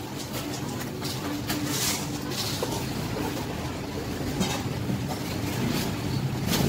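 Steady low mechanical hum, like a running engine, with scattered light clicks and rustles from eels being cut on a cloth with scissors.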